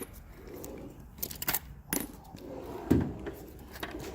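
Small metal tools clinking and clattering as they are handled and moved about in a toolbox drawer, with a louder knock about three seconds in.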